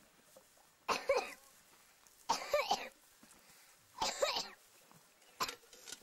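A person coughing: four coughs about a second and a half apart, the last one shorter.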